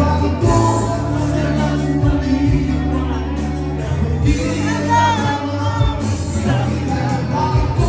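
Live band playing in a bar, with bass, drums and a vocalist singing the melody, the voice most prominent from about halfway through.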